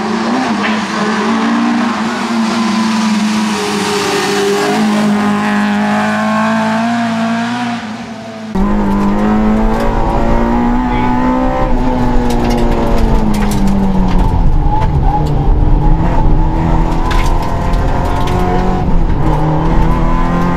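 Suzuki Swift rally car's engine revving hard, its pitch rising and falling through gear changes as the car is driven at speed. About eight seconds in the sound changes to the car heard from inside the cabin: the engine at high revs under a heavy low rumble, with scattered sharp clicks and knocks.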